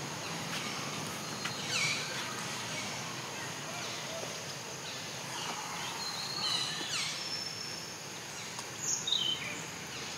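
Steady outdoor background hiss with several short, high calls that fall in pitch, scattered through and clearest near the end.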